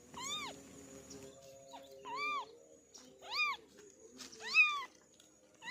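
A kitten meowing four times, high-pitched calls that rise and fall, about a second apart, with the fourth the loudest and a fifth starting at the very end.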